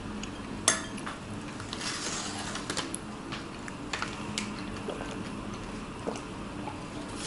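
Cutlery clicking and tapping at a table: a fork picking at food in a foil-lined box, a string of light clicks with one sharper click about a second in.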